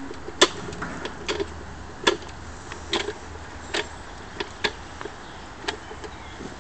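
Tirfor hand winch clicking with each stroke of its lever, a sharp click about every second, as it hauls a heavy container up on its wire rope.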